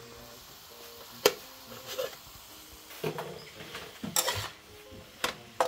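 Metal spatula scraping and clanking against a steel wok during stir-frying, with several sharp metallic clinks at irregular intervals.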